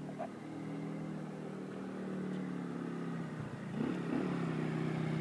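Yamaha Mio scooter's single-cylinder four-stroke engine running as the scooter approaches, growing louder, with a brief rise in pitch about four seconds in.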